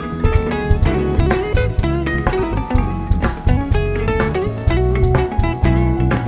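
A live band playing an instrumental passage: an electric guitar carries the lead over bass guitar and a drum kit keeping a steady beat.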